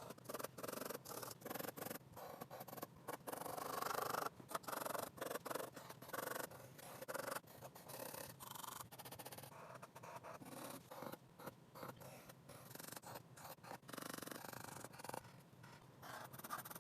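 Pencil sketching on paper: quick, uneven strokes scratching and rubbing, with short pauses between them.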